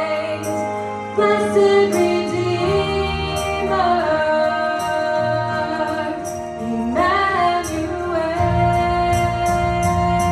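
Worship music: a woman singing held, gliding notes over a band with bass and a steady cymbal beat.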